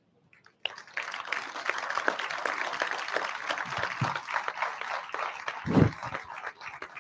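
Audience applauding: a dense patter of many hands, starting sharply about half a second in after a brief silence and thinning out near the end.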